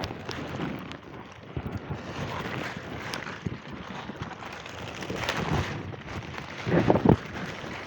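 Wind buffeting the microphone over steady rustling, with a few louder thumps about seven seconds in.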